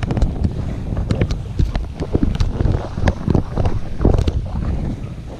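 Wind buffeting an action camera's microphone aboard a sailing catamaran under way: a loud, uneven low rush that surges and eases, with scattered sharp clicks and knocks.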